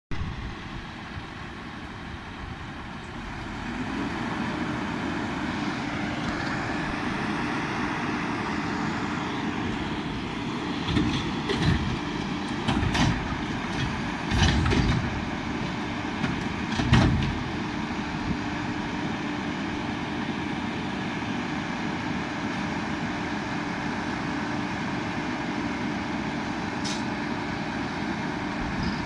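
Front-loading garbage truck pulling up and running at the curb with a steady engine hum. In the middle come a run of loud clanks and bangs as its front arm lifts and dumps a trash cart.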